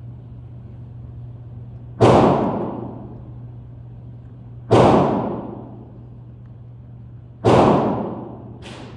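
Three gunshots fired one at a time, evenly spaced about two and a half seconds apart, each with a ringing tail, then a fainter sharp crack just before the end.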